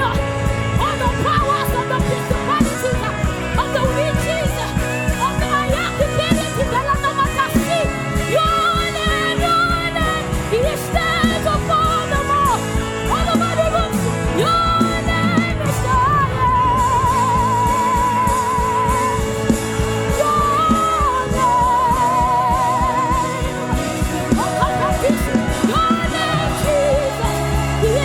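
Live gospel worship music: a band with drums plays under sung melody and ad-libs. Two long, wavering held notes with vibrato come near the middle.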